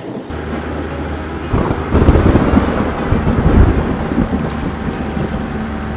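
Thunderstorm sound effect: thunder rumbling, swelling about a second and a half in and easing off after a few seconds, over a noise like rain and a steady low hum.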